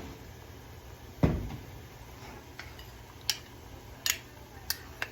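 Kitchenware being handled: one heavy knock about a second in, then four sharp clinks of utensils against dishes over the second half.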